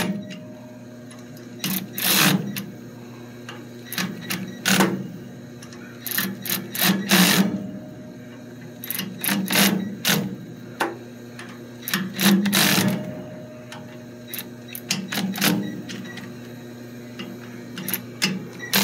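Ryobi cordless electric ratchet running in short bursts, about every two to three seconds, as it drives the bolts on a filter drier cover in a crisscross pattern. A steady hum runs underneath.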